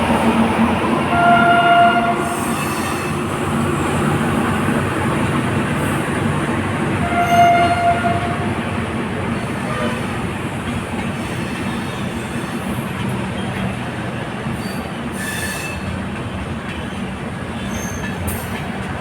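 Coromandel Express train running on the track with a steady rumble that slowly fades, and two short horn blasts, about a second and about seven seconds in.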